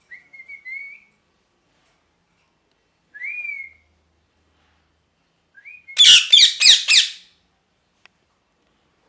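Parrot calling: a short whistled call at the start and another about three seconds in, then a loud burst of harsh squawks about six seconds in.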